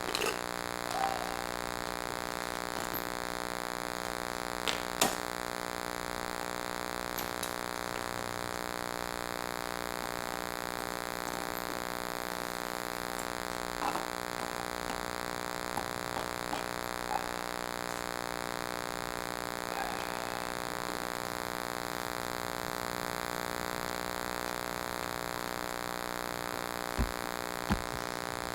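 Steady electronic buzzing hum made of many fixed tones, the weird noise from a faulty camera's audio, with a few faint clicks and knocks.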